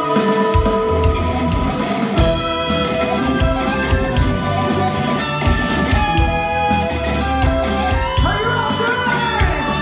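A rock band playing live: drum kit and electric guitars over held keyboard chords, with the cymbals and drum beat coming in about two seconds in.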